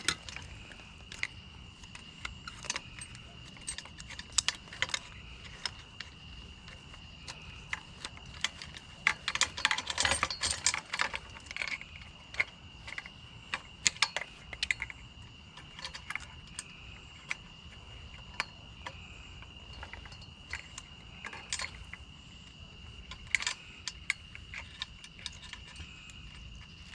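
Wire cutters snipping and metal scrap parts clicking and clinking as wires are worked loose from a cast metal piece, with scattered sharp clicks and a denser cluster about ten seconds in.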